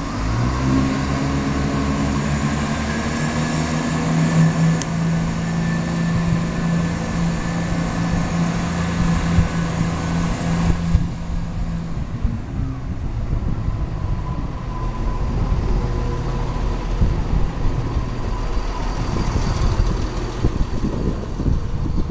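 Diesel multiple unit in London Midland livery, of the class 170 or 172 Turbostar family, moving along the platform with its underfloor diesel engines running in a steady drone. The drone eases back about eleven seconds in, leaving a rough rumble of the wheels on the rails with irregular low knocks.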